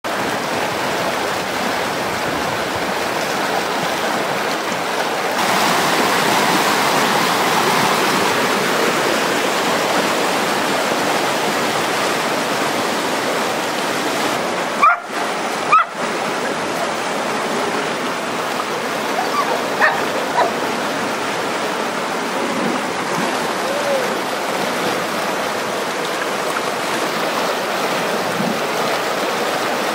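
Creek rapids rushing steadily. A dog barks twice, sharply, about halfway through, and gives a few fainter barks a few seconds later.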